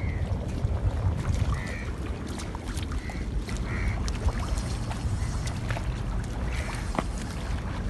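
Strong wind buffeting the microphone in a steady low rumble, with scattered sharp ticks and several short high squawks a second or two apart.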